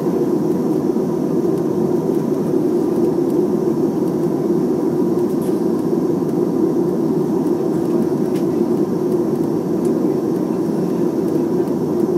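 Steady cabin rumble inside a Boeing 737-300 rolling on the ground after landing, its CFM56 jet engines running at low power.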